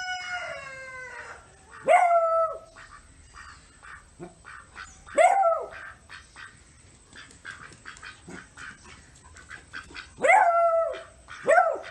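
A dog barking in high-pitched calls. A drawn-out call falls in pitch at the start, then four short barks follow a few seconds apart.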